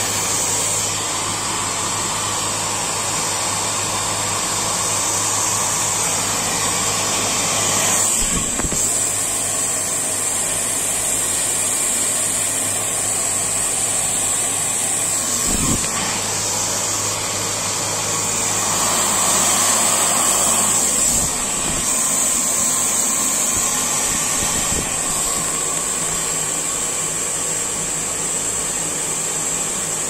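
Steady machine noise: an even whirring hiss with a low electrical hum underneath, running without a break, with a couple of soft bumps partway through.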